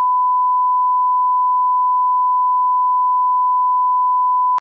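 A 1 kHz reference test tone: one steady pure beep held for about four and a half seconds, cutting off suddenly.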